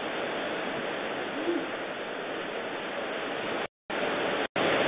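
Steady hiss of tropical-storm wind and heavy rain, heard through a Ring security camera's microphone; the sound drops out completely twice, briefly, near the end.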